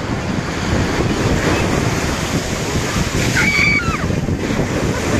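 Ocean surf breaking and washing up the shore, with wind buffeting the microphone. A short high-pitched voice calls out a little past halfway.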